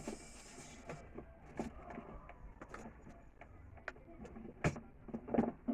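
Scattered light clicks and taps of small objects being handled, with a brief hiss at the start and one sharper tap a little before the end.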